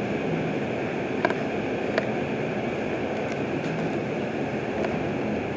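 R142 subway train running past a station platform: a steady rumble of wheels and motors on the rails, with a couple of sharp clicks about a second and two seconds in.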